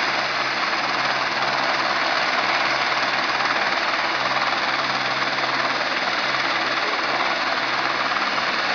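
Helicopter running close by, its turbine and rotor making a loud, steady noise with a constant whine.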